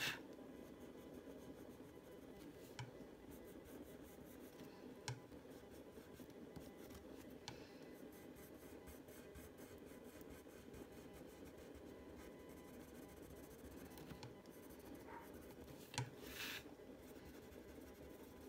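Faint steady scratching of a Prismacolor dioxazine purple coloured pencil on paper, pressed on hard to build up the dark edge. A few light clicks are scattered through it, and there is one brief louder rustle near the end.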